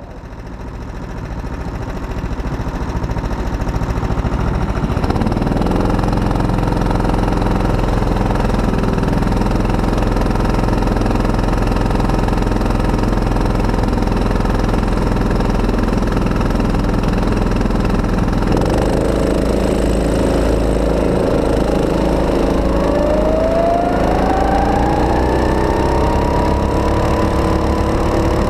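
Go-kart engine idling, heard from on board the kart, then from about two-thirds of the way in revving up with a smoothly rising pitch as the kart accelerates away and settles at a higher, steady note.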